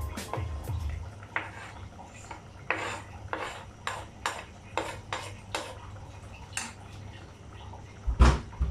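A spoon tapping and scraping chopped green onions off a plastic cutting board into a stainless steel cooking pot, a short sharp knock every half second to a second. Near the end comes a louder, heavier clunk as the spoon is set down in the pot.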